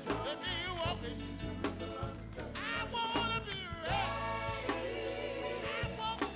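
Background music: a song with a wavering singing voice over a steady band accompaniment.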